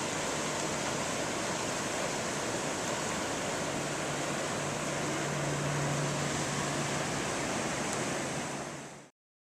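Steady rushing noise with a low steady hum beneath it, fading out about nine seconds in.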